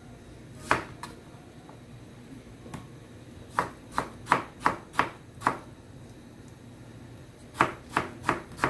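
Kitchen knife slicing a tomato on a cutting board, the blade knocking on the board with each cut: one cut, then a run of six about two a second, then four more near the end.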